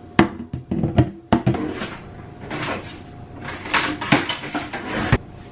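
Kitchen cabinet and utensils being handled at the counter: a quick run of knocks and clicks in the first second and a half, then two stretches of rattling and scraping, ending with one sharp knock.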